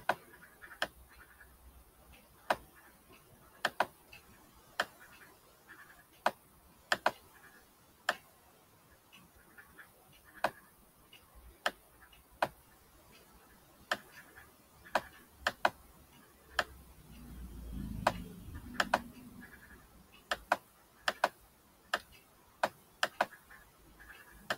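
Computer mouse clicking irregularly, single clicks and quick pairs, as controls are selected and dragged on screen. A brief low rumble comes about three quarters of the way through.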